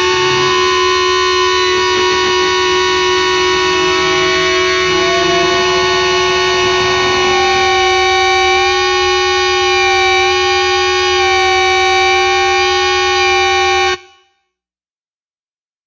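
Closing drone of a metal song: held, steady tones with a higher tone wavering slowly in pitch, which cut off suddenly about 14 seconds in.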